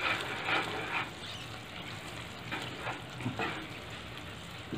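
Wooden spatula stirring red chili pieces through thick jaggery syrup in a non-stick pan: soft, repeated swishing and scraping strokes.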